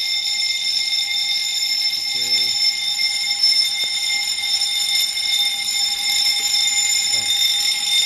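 Fire alarm bell ringing continuously at a steady pitch, starting suddenly, set off by a smoke detector being tested with canned test smoke. The alarm sounding shows the detector has tripped.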